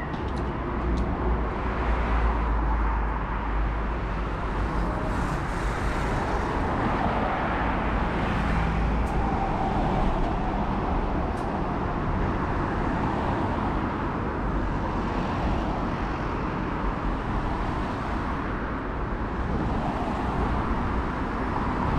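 Street ambience dominated by steady road traffic, with vehicle engines and tyres making a continuous low rumble.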